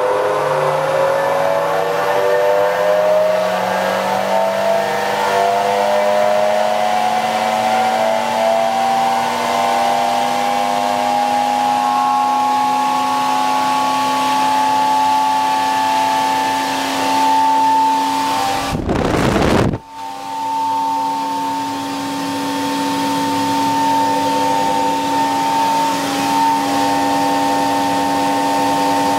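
Centrifugal blower's electric motor, run from a homemade rotary phase converter, spinning up slowly: several tones rise together in pitch for about sixteen seconds, then it runs steady at speed with a loud hum and whine, a lot of electrical noise. About two-thirds of the way in, a short rush of noise breaks in and the sound dips briefly. The converter's outputs fall badly out of balance as the blower starts.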